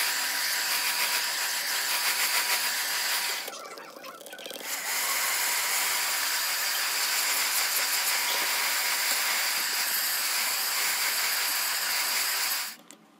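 Handheld electric air blower running, a steady whine over rushing air as it blows dust off a laptop keyboard and logic board. It drops away briefly about four seconds in, then runs again until it cuts off shortly before the end.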